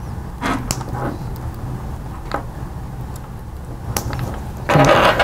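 Small plastic wire connectors being handled and plugged together, giving several soft clicks, with a longer, louder rustle of handling near the end, over a steady low hum.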